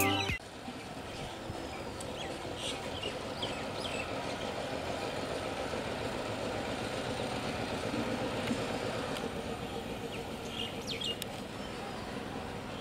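Music cuts off at the very start, then the faint, steady rumble of a distant approaching EMU electric suburban train, swelling slightly, with birds chirping a few times.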